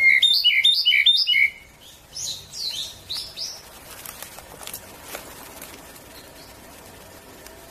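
Ryukyu robin singing: a loud, rapid run of clear notes lasting about a second and a half, then a fainter run of similar notes about a second later.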